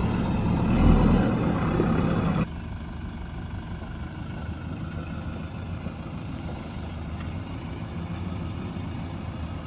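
JCB backhoe loader's diesel engine running, loud for the first two and a half seconds, then dropping suddenly to a steady, quieter idle.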